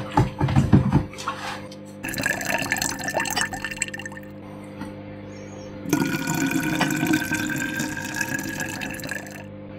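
Liquid soft-bait plastic (plastisol) running from a jug's spigot into a glass measuring cup, the pitch rising as the cup fills. A few knocks in the first second.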